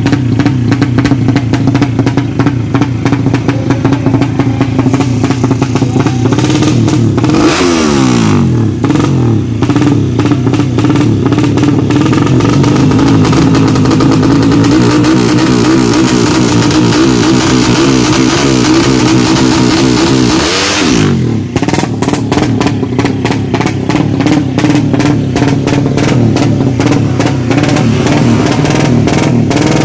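Tuned Suzuki Satria FU 200cc drag-bike engines running loud at high revs. The pitch drops sharply twice, about seven seconds in and again about twenty-one seconds in, with a rapid crackle after the second drop.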